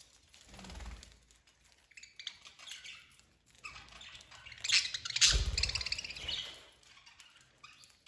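Budgerigars chirping and chattering in short irregular bursts, loudest about five seconds in. Two low thumps come about a second in and again with the loudest calls.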